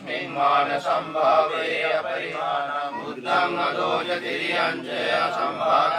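Buddhist pirith chanting in Pali: a continuous sung recitation.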